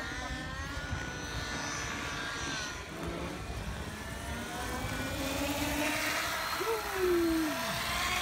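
Electric radio-controlled helicopter, a three-bladed SAB Goblin Urukay, in flight: a steady whine of several pitches that drifts up and down, getting louder in the second half. Near the end a separate tone glides quickly downward.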